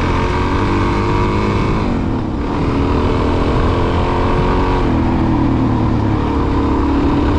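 Suzuki DR-Z400's single-cylinder engine running on the move. The revs fall and ease off about two seconds in, then pick up and climb again, and the note changes once more about five seconds in. A steady low rush of wind lies underneath.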